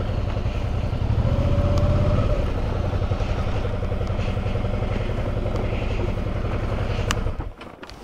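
Motorcycle engine running steadily on the move, pulling harder for a moment about a second in. The sound stops abruptly near the end.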